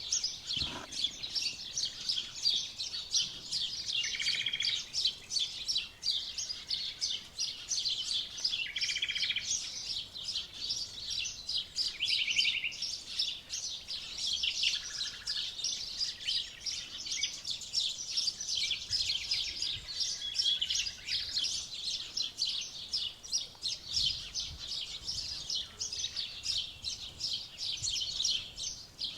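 Dense chorus of songbirds chirping and singing rapidly, with a few short buzzy trills from one bird standing out several times.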